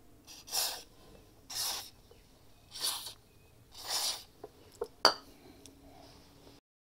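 Aerosol lubricant sprayed in four short hissing bursts about a second apart, one for each bolt hole. A few light clicks follow, then one sharp click about five seconds in.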